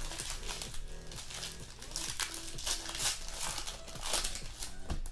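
Trading-card pack wrappers crinkling and crumpling in the hands as the packs are emptied, in a series of irregular crackly bursts.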